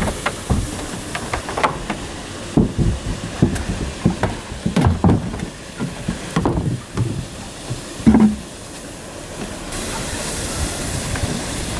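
Irregular knocks and clunks of heavy cast-iron engine parts, exhaust manifold sections among them, being handled and set down on a wooden deck, over a steady hiss.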